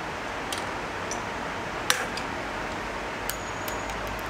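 A few sharp metallic clicks and clinks from a hand rivet tool being worked at a moped's steering head, the loudest about two seconds in and a small cluster near the end, over a steady background hiss.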